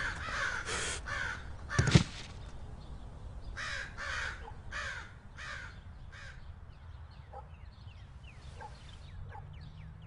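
Crows cawing, about five harsh caws in a row around the middle, after a single loud thump about two seconds in. Faint, quick, high chirps of small birds follow near the end.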